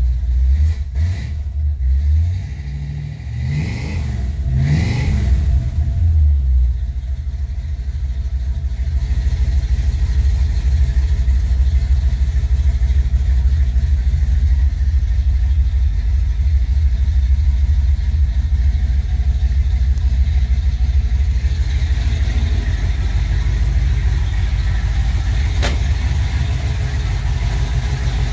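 Classic Chevrolet Malibu's engine, heard from inside the cabin. It is blipped a few times, rising and falling in pitch, then settles into a steady idle. A single sharp click comes near the end.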